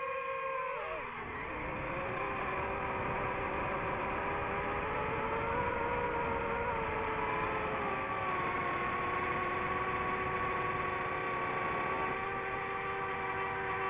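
DJI FPV drone's motors and propellers whining, several pitches at once. The pitch drops sharply about a second in as the throttle is pulled back for a descent, then climbs again and holds nearly steady. A rushing noise runs underneath.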